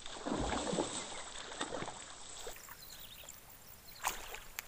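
Hooked snakehead thrashing and splashing at the water's surface, with a burst of splashing about half a second in and smaller splashes after. Two sharp slaps or clicks come near the end.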